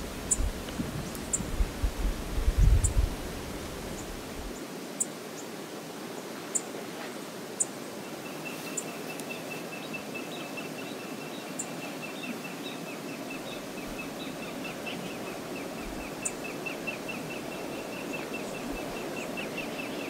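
Steady rush of fast-flowing river water. Gusts of wind rumble on the microphone for the first four seconds, sharp high chirps come and go, and a fast, high-pitched trill runs from about eight seconds in.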